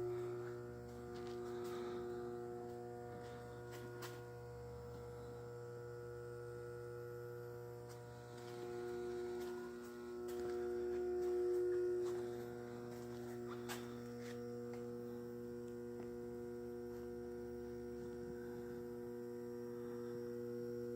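Steady electrical mains hum, a low buzz with several steady overtones that swell and fade slightly, with a couple of faint clicks.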